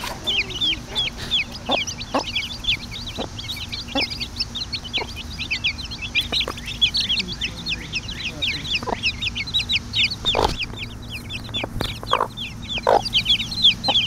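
A brood of chicks peeping nonstop in short high chirps, many falling in pitch, with a mother hen clucking a few lower notes now and then.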